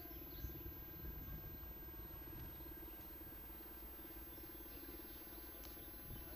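Faint steady mechanical hum with a rapidly pulsing low drone, two thin steady tones above it and a background hiss, unchanging throughout.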